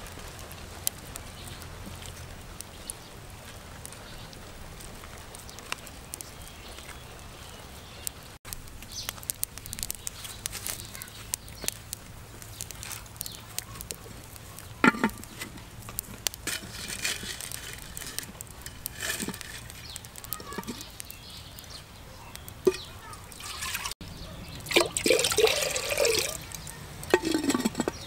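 Scattered clicks, knocks and liquid sounds of hands working with unglazed earthenware cooking pots, ending with a louder grating squeak about 25 seconds in as a clay lid is set and turned on a clay pot's rim.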